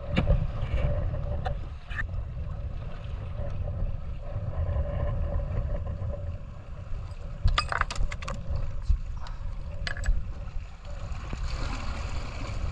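Low, uneven rumble of wind buffeting the microphone, under a faint steady hum. A few sharp clicks sound, most of them in a cluster about eight seconds in.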